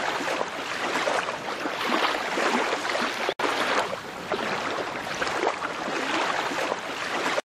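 Water washing and splashing against an inflatable dinghy's hull, a steady hiss that swells and eases every second or so. It cuts out briefly a little past halfway.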